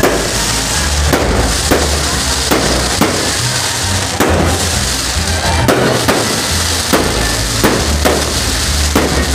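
Fireworks display: aerial shells bursting in quick succession, a sharp bang about every half second, over a steady hiss.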